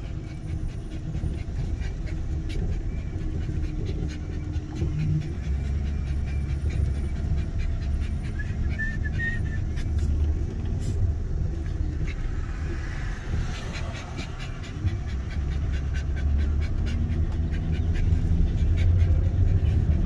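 A dog panting steadily inside a moving vehicle, over the low rumble of the engine and road.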